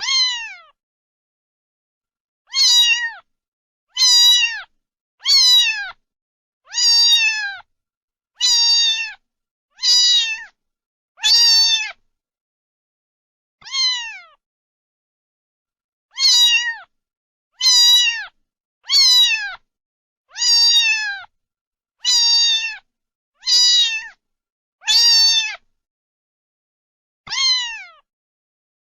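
A cat meowing over and over, about seventeen times, every one to two seconds with a few longer pauses. Each meow is short and falls in pitch.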